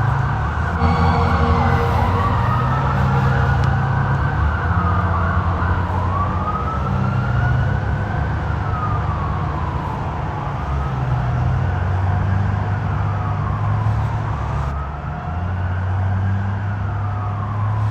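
Police siren in a slow wail, its pitch rising and falling about once every four seconds, over a steady low rumble.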